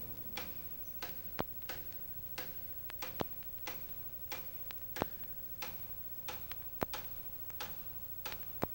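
Faint, irregular clicks, about two to three a second and unevenly spaced, over a low steady hum.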